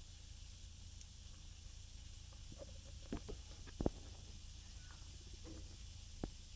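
Quiet steady hiss with a few light clicks and knocks, about three and four seconds in and again near the end, as electronic parts and metal hardware are handled during the teardown.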